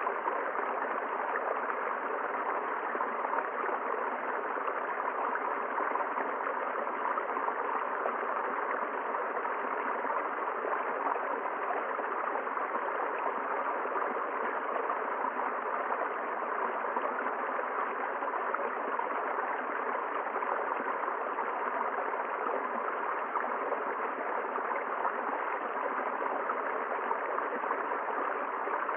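A river rushing steadily over its bed, an even flowing noise with no change.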